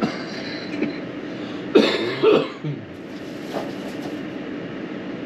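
A person coughing, two quick coughs about two seconds in, over a steady background hum.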